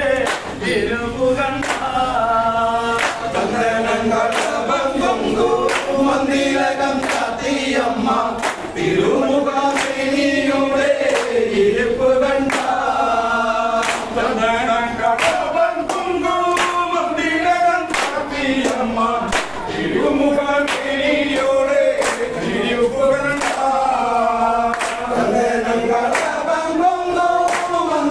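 A group singing a Kaikottikkali song in chorus, a lead voice with the others joining in, with the dancers' hand claps keeping a steady, even beat.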